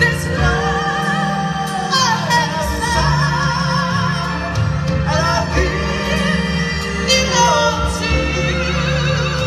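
Singing over a backing track, with long held notes that waver in pitch over a steady bass line.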